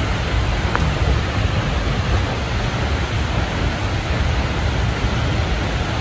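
Large waterfall roaring: a steady, dense rush of falling water with a deep rumble underneath.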